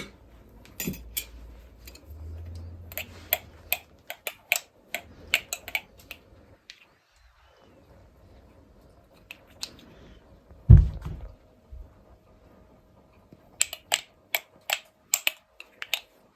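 Irregular sharp clicks and taps in two quick clusters, with one low, heavier thump about eleven seconds in.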